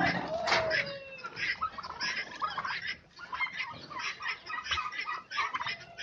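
A flock of domestic poultry clucking and chirping: many short calls in quick, irregular succession, with one longer call falling in pitch just under a second in.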